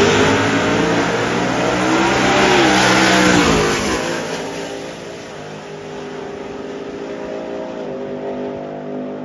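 Two pickup trucks drag racing: the OBS Chevrolet shop truck with its ZZ632 big-block V8 and a Ford F-150, both revving at full throttle through the gears. The sound is loudest as they pass in the first few seconds, then fades as they run down the track.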